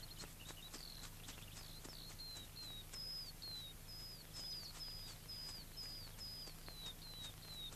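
A bird calling over and over in short, high, slightly falling whistled notes, about two a second. A faint steady low hum runs underneath.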